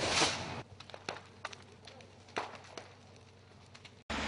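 A short loud rush of noise, then a few scattered sharp knocks or cracks over the next few seconds. The sound cuts out briefly about four seconds in and gives way to a steady hiss.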